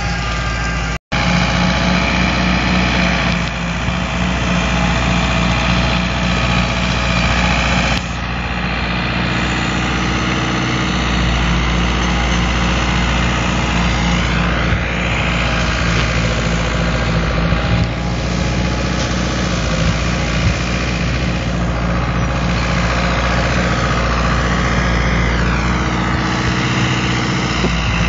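Fiat 766 tractor's diesel engine running steadily, driving a 2-metre Agram rotary mower that is cutting grass. The sound cuts out briefly about a second in.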